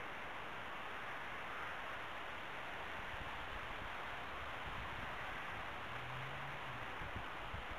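Steady outdoor background hiss, with a faint low hum for about a second six seconds in and a few faint low bumps near the end.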